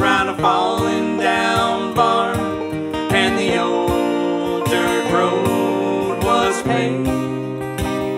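Acoustic guitar and banjo playing a country-folk song, with sung vocals over them.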